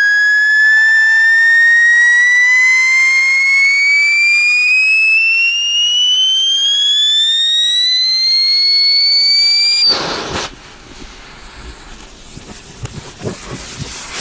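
Whistle stage of a Scream 100 whistle-to-salute firecracker: a loud, piercing whistle that rises steadily in pitch for about ten seconds while the charge burns, the lead-in to the ground salute. It then cuts off abruptly, leaving a much quieter hiss with scattered crackles.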